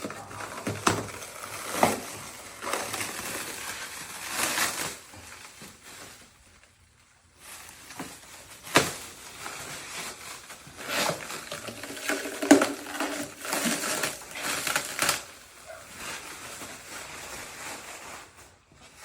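Irregular rustling and crinkling handling sounds with scattered sharp clicks and knocks, easing to near quiet for about a second around six to seven seconds in.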